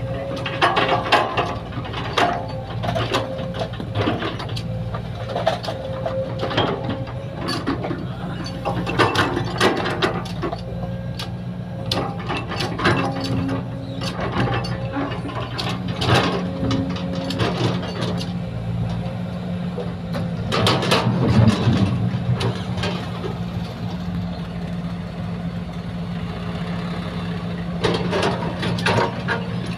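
Sumitomo excavator's diesel engine running steadily under digging and loading work, with repeated metallic clanks and knocks. The engine works harder for a moment about two-thirds of the way through.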